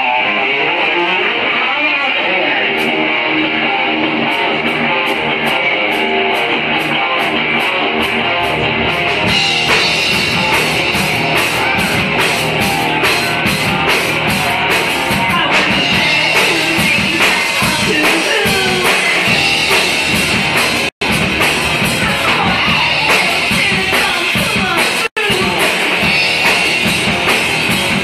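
Live rock band playing: electric guitar with a drum kit, the hi-hat ticking steadily at first and the full band coming in about nine seconds in. The sound cuts out for an instant twice in the second half.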